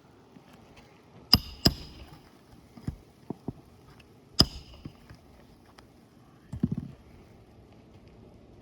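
Hammer driving a roofing nail through an asphalt shingle: three sharp ringing strikes, about a second in, just after, and about four seconds in, with lighter taps between. A short clatter of knocks near the end.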